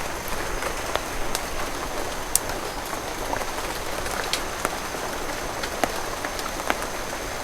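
Heavy rain falling steadily, with scattered sharp drop hits.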